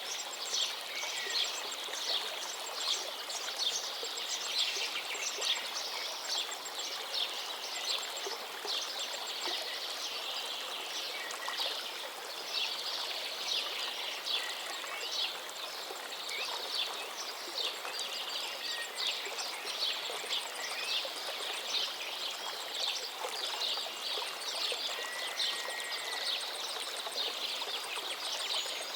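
River water flowing steadily, with many small birds chirping and twittering over it throughout.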